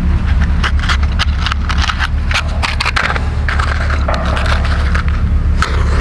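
A wooden match being handled in its box and struck against the box's striker, a run of small dry clicks and scrapes ending in the scratch of the strike as the match catches.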